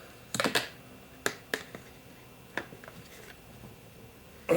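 A few sharp, separate clicks and knocks, about six spread over four seconds, from the bearing-washer container and its lid being handled after the shaking.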